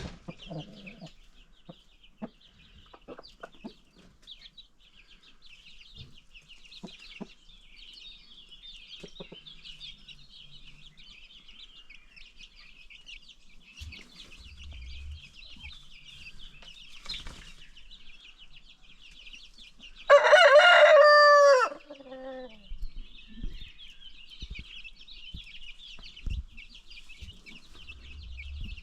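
A rooster crows once, about twenty seconds in, a loud call of under two seconds that drops in pitch at the end, over a steady high-pitched chatter and a few faint knocks.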